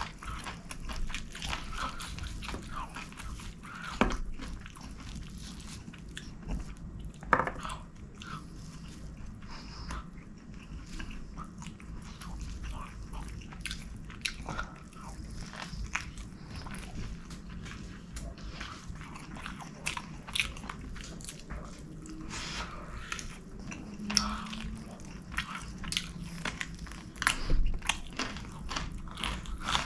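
Close-miked eating sounds: a man chewing and smacking mouthfuls of rice and chicken, with many sharp clicks and crunches, the loudest about 4 and 7 seconds in and near the end.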